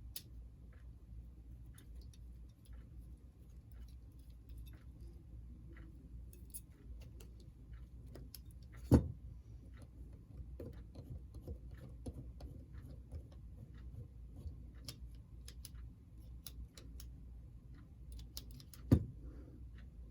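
Scattered faint clicks and taps of small model-locomotive parts being handled and fitted, with two sharper, louder knocks, one about nine seconds in and one near the end.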